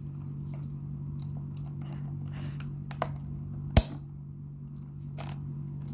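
Cardboard box being handled and its top flap worked open: faint scrapes and taps, a small click about three seconds in and one sharp snap a little under four seconds in, over a low steady hum.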